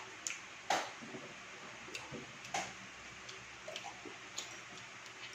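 Quiet eating sounds: a few separate sharp clicks and crisp crunches, about one a second, the clearest a little under a second in.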